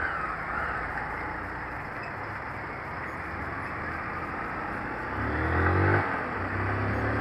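Honda CG 160 Titan's single-cylinder engine running under a rush of riding wind on the helmet microphone. About five seconds in, the engine revs up as the bike accelerates, dips for a moment, then pulls steadily again.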